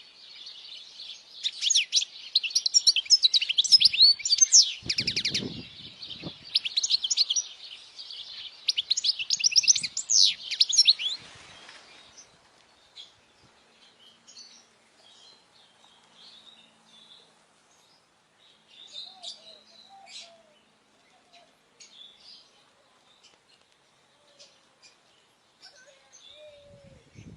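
European goldfinch singing a fast, twittering song of high chirps and trills, which stops about twelve seconds in, leaving only scattered faint chirps. A brief low thump sounds during the song.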